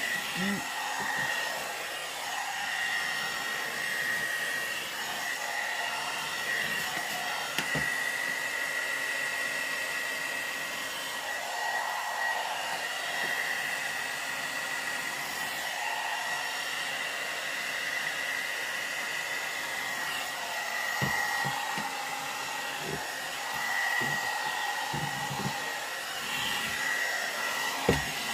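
Hot air brush (one-step hair dryer and styler) running steadily on its medium heat setting, a steady blowing with a high whine over it. A few light knocks come in the last third.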